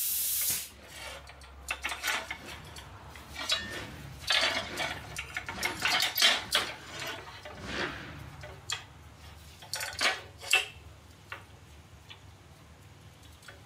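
A plasma cutter's hiss cuts off about half a second in. Then comes a run of irregular metallic clanks, clinks and scrapes as cut steel plate and a clamp are handled and knocked about on a steel welding table. They are busiest in the middle and thin out near the end.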